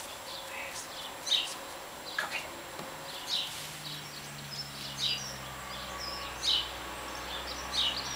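Small birds chirping in short, high calls every second or so. A low steady hum comes in about three and a half seconds in.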